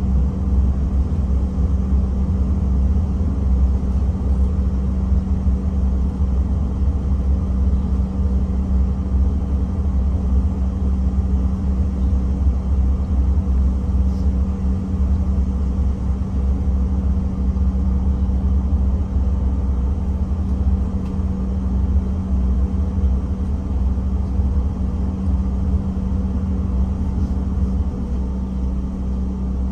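Steady low drone heard inside the cabin of a Bombardier CRJ-700 regional jet, its rear-mounted GE CF34 engines idling, with a steady hum running through it.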